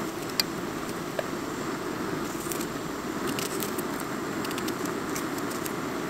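Gas cartridge stove burner running with a steady rush under a pan of frying bread rolls, with a few light knife clicks as an onion is sliced by hand over a pot.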